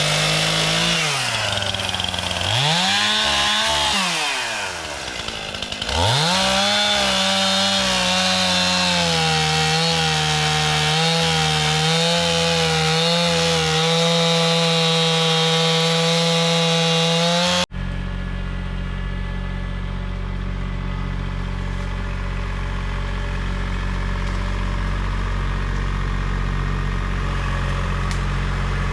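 Stihl chainsaw revving up and down, then running at high revs with small dips in pitch as it cuts wood. About two-thirds of the way through it cuts off abruptly to the steady low drone of a Kubota L2502 compact tractor's diesel engine.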